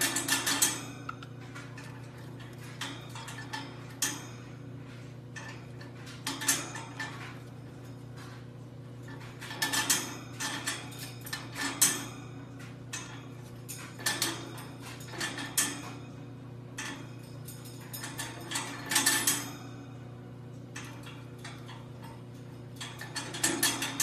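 Irregular bursts of light clicking and clattering every few seconds over a steady low hum.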